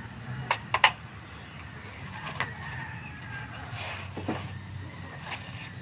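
Sharp plastic clicks and taps from a small folding drone being handled: three quick clicks about half a second in, then single clicks later, over a steady low hum.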